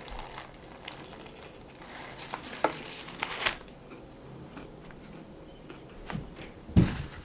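Biting into and chewing a fried chicken sandwich, with a few short crunches of the breading and the rustle of its paper wrapper as it is put down. A single louder thump near the end.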